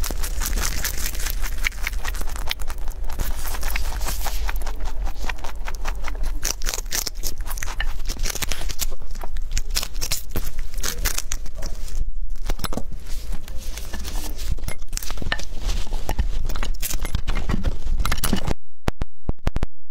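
Rabbit chewing celery leaves and stalks right against a clip-on microphone: fast, crisp crunching and crackling bites. The crunching cuts off suddenly about a second and a half before the end.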